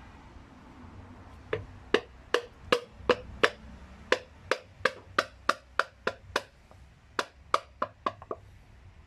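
Wooden hammer handle tapping a piston through a ring compressor into the bore of a Toyota 4E-FE engine block. About twenty sharp knocks come roughly three a second, starting about a second and a half in and stopping shortly before the end.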